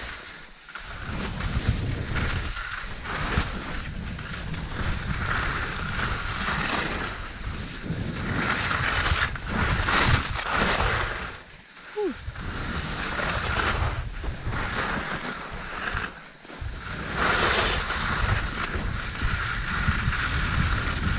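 Wind rushing over the microphone of a camera worn while skiing downhill, with Fischer skis hissing and scraping over the snow. The hiss swells and fades every few seconds as the skier turns, with short lulls about half a second in, around twelve seconds in and around sixteen seconds in.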